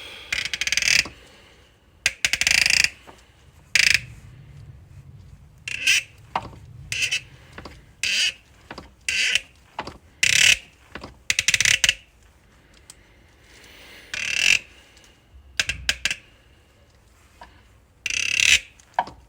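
A seized glow plug creaking and squeaking in its thread in a Ford Transit 2.2 Puma diesel's cylinder head as it is turned out with a wrench, in about a dozen short, uneven bursts. The squeal is the sign of a plug tight in its thread.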